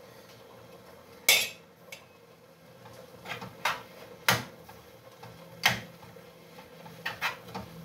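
A metal spoon clanking and scraping against cooking pans as greens are stirred: about nine sharp, separate knocks, the loudest about a second in and a quick cluster near the end.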